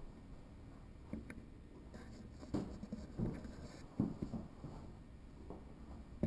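Faint handling noise from a handheld camera being carried through a small room: a few soft, irregular thumps and rustles over a low steady hiss.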